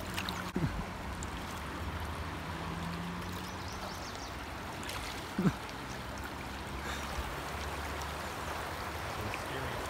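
River rapids rushing steadily, an even wash of flowing water. A brief vocal sound rises out of it about halfway through.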